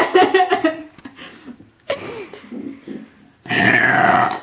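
Chuckling at first, then about three and a half seconds in a little girl lets out a loud, rough burp lasting about a second.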